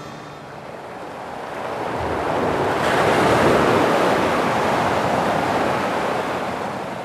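Ocean surf: one long wash of waves that swells from about a second in, peaks in the middle and slowly fades away.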